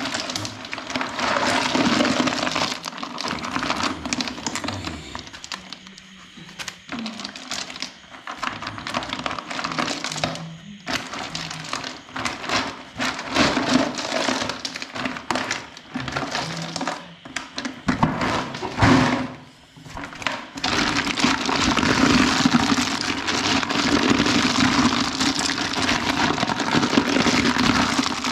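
Snail shells clattering and grinding against each other as hands stir a bucketful of live snails, a dense crackle of small clicks with a few brief lulls. About two-thirds of the way through there is one louder thump, and after it the crackle is steadier and denser.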